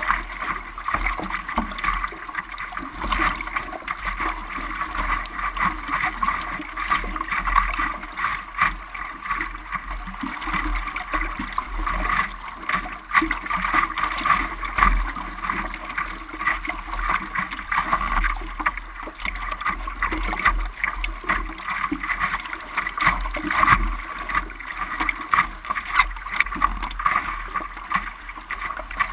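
Sea water splashing and washing, with a pulsing low rumble of wind on the microphone.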